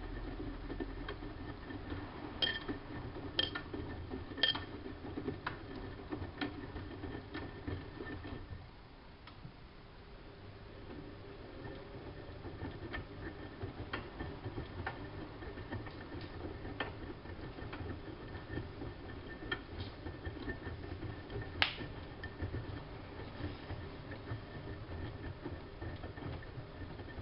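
Siemens Siwamat IQ front-loading washing machine running its wash: a steady drum-motor hum and rumble with scattered light clicks and taps. The drum stops for a moment about eight seconds in, then starts turning again.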